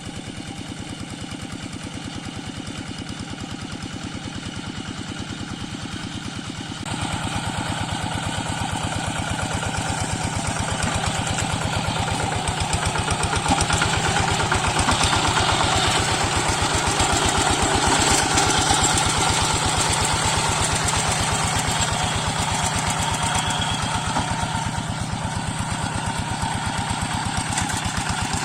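Small single-cylinder diesel engine running steadily with an even, rapid chugging beat. About seven seconds in it gets louder and stays so.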